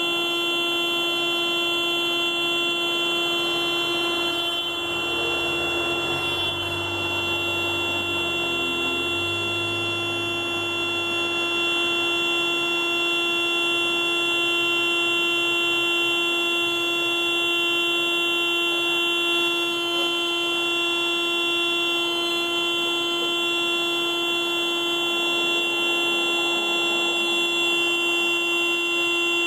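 Car alarm sounding one steady, unbroken horn tone that does not pulse or change. A low rumble rises and fades underneath it from about four to twelve seconds in.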